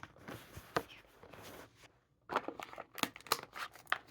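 Hot Wheels card-and-blister package being opened: plastic and card crinkling and crackling with sharp clicks. There is a brief pause just before the middle, then a quicker run of clicks.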